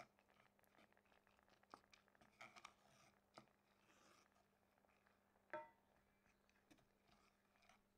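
Wooden spatula stirring rice in broth in a pan, very faint: scattered soft scrapes and clicks, with one sharper knock about five and a half seconds in that rings briefly, over a faint steady hum.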